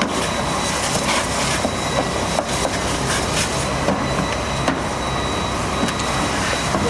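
Fire engine running steadily at a car fire, with the hiss of a hose spraying the burning car and scattered short knocks.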